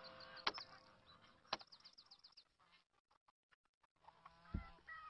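Mostly near silence, with two sharp taps on a laptop keyboard about half a second and a second and a half in. Faint bird chirps sound near the start and again toward the end.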